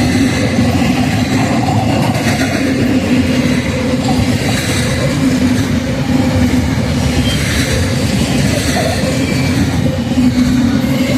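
Freight train cars rolling past, a loud, steady rumble of wheels on rail.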